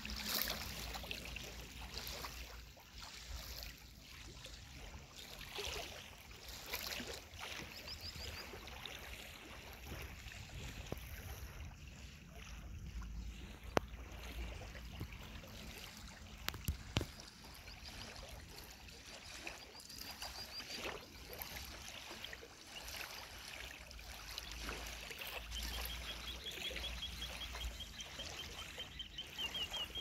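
Small, gentle waves lapping onto a sandy riverbank, a steady wash of water with a low rumble at times. A couple of sharp clicks come near the middle, and a rapid high trill sounds several times in the second half.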